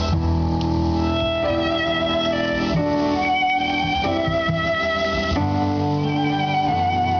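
Instrumental music with held chords that change about every second and a half.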